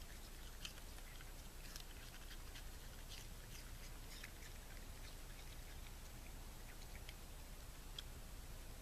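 Raccoon munching an apple: faint, irregular crunching clicks of chewing over a steady low background hum.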